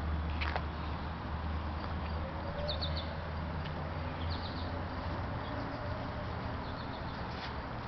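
Steady low hum, with a click about half a second in and a few short, high chirps of birds in the background.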